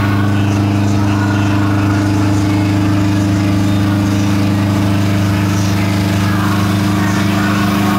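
An engine running steadily at one unchanging pitch, a loud low drone, from the machinery of a passing illuminated carnival float.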